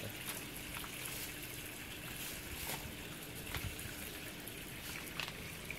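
Water running into the drum of an LG top-loading washing machine as it fills: a steady splashing hiss with a faint steady hum under it, and a few light clicks.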